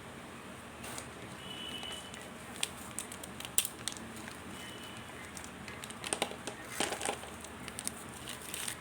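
Mothballs and their packaging being handled: scattered sharp clicks and crinkling, coming in two clusters a few seconds apart.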